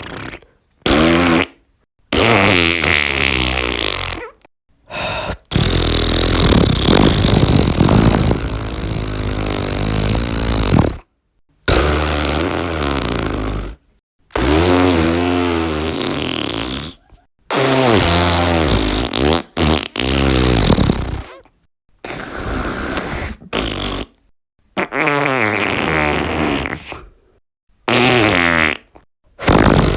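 The Mr Red Head Tongue Toot talking toy playing a run of recorded raspberry and fart sound effects, about a dozen in a row, separated by brief silent gaps; some are short toots and one is drawn out for several seconds.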